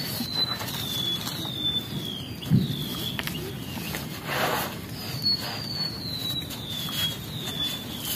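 A bird whistling a run of short falling notes that step down in pitch, heard twice. Under it come scuffs and a thump of the climber's hands and feet on a thin tree trunk, with a rustle about halfway.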